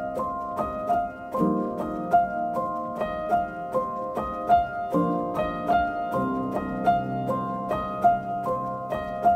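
Background instrumental music: a steady run of plucked, harp-like notes, about two or three a second, over soft held chords that change a few times.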